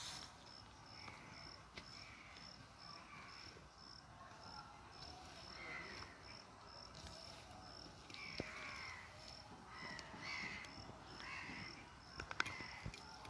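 Outdoor ambience: an insect chirping steadily in high pulses about twice a second, with birds giving short, falling calls on and off, most of them in the second half. A few sharp clicks near the end.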